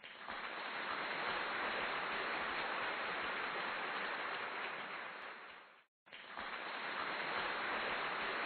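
A steady, even hiss like rain, fading out about five and a half seconds in, a moment of silence, then fading back in.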